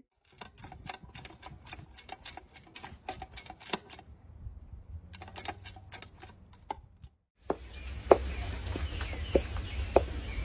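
Rapid, irregular light clicking and tapping, several sharp clicks a second, in two runs. After a break at about seven seconds there is a steadier hiss with a few separate knocks.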